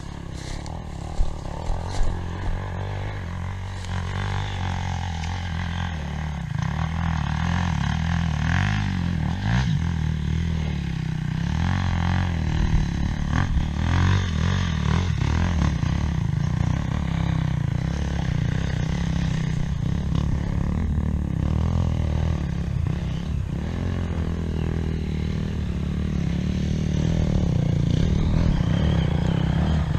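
Motorcycle engine running steadily on an off-road trail, with some clatter, getting louder near the end.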